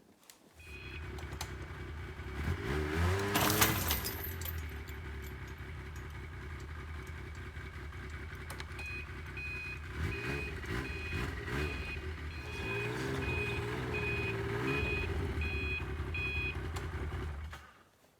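Yamaha Viking snowmobile engine running under heavy load as it yanks a big log sled over soft snow, revving hard a few seconds in and again later, with the engine note rising and falling. About halfway through, a repeating electronic beep starts, a little faster than once a second. The engine cuts off near the end.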